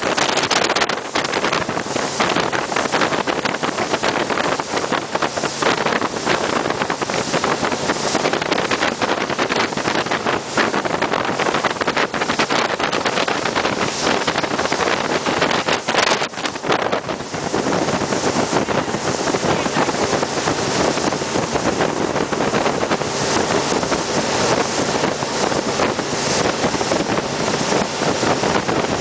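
Jet boat running at speed over calm water: a steady rush of engine and water, overlaid by wind buffeting the microphone. The sound changes character a little about two-thirds of the way through.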